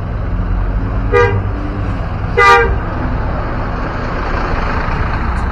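Basuri telolet bus horn giving two short blasts just over a second apart, the second louder, over a steady low engine rumble.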